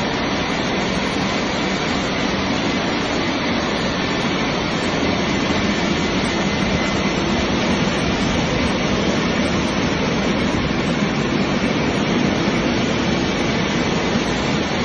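Automatic tunnel car wash running over a car: a steady rushing noise from the spray, cloth washers and air-blower dryers, slightly louder from about five seconds in.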